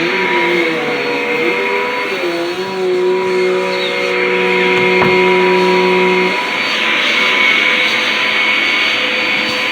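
Dirt Devil vacuum cleaner running steadily while vacuuming, its motor pitch wavering for the first couple of seconds, then settling, with a single click about five seconds in.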